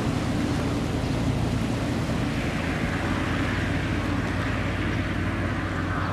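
Pilatus PC-12's single Pratt & Whitney PT6A turboprop engine running, a steady drone with propeller noise and a slowly shifting hiss in the upper range.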